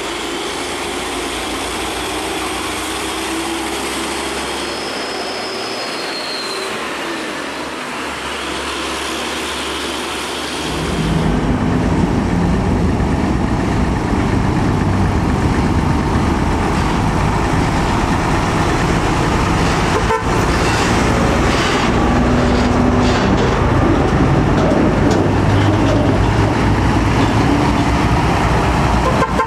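Heavy diesel trucks driving past in traffic. About eleven seconds in, the sound jumps to a louder, deeper engine rumble as a convoy of UD Quester GWE 370 tractor units pulls through, with brief truck horn toots.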